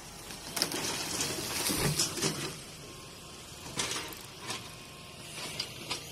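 Concrete elevated water tank toppling over and crashing to the ground, a heavy crash of about two seconds starting just after half a second in. It is followed by a few scattered knocks of settling debris.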